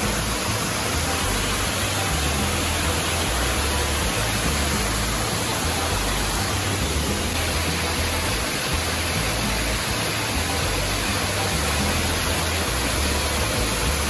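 Steady rush of water from a high waterfall and the rocky stream below it, an even roar with an uneven low rumble underneath.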